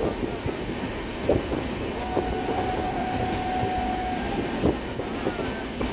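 Express passenger train running, heard from aboard: a steady rumble of wheels on the track with a few scattered clacks. A faint steady whine comes in about two seconds in and lasts about two seconds.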